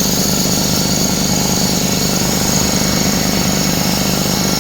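33-gallon Craftsman belt-driven piston air compressor running steadily and loudly while it pumps up the tank pressure.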